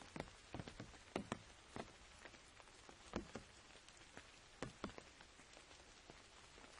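Raindrops falling on an umbrella's fabric canopy: a faint steady hiss of rain with irregular, separate drop taps, some louder than others.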